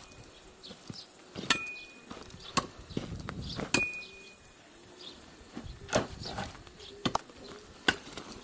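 Firewood rounds knocking against one another and the wooden cart as they are loaded, a series of sharp irregular knocks. A steady high chirring of crickets runs underneath.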